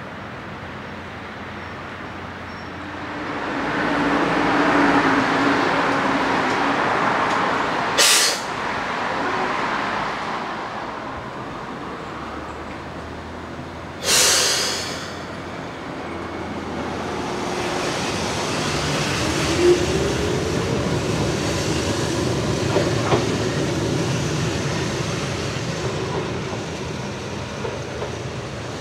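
Keihan 600-series electric train cars at a station: a running rumble with a low motor hum that swells a few seconds in. Two sharp bursts of compressed-air hiss come about eight and fourteen seconds in, the second lasting about a second. In the second half a low gliding motor whine and a few wheel clicks come as a train approaches.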